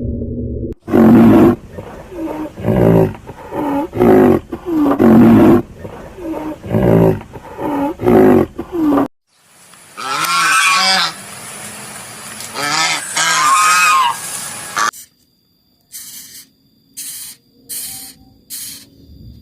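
A succession of animal calls from different animals: first a run of loud, repeated calls about once a second, then two longer wavering, higher-pitched calls, then short sharp calls near the end.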